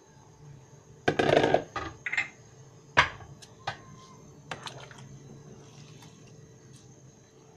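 Wooden spatula stirring rice in a large pot, knocking and scraping against the pot's metal side. A burst of clatter comes about a second in, the loudest single knock at about three seconds, and a few lighter taps follow.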